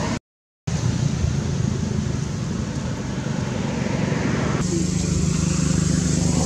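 Steady outdoor background noise that cuts out for about half a second just after the start. About four and a half seconds in, a steady low engine hum joins it.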